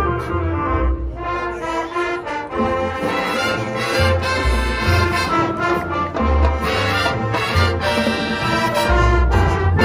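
Marching band playing: full brass ensemble over drums and front-ensemble percussion, with deep bass hits recurring every second or so.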